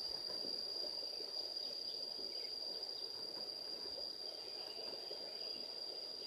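Insects trilling in one steady, unbroken high note, over a low, even rush of flowing river water.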